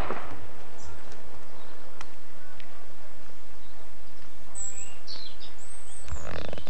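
Outdoor background noise with a few short, high bird chirps about two-thirds of the way through, and a sharp click right at the start.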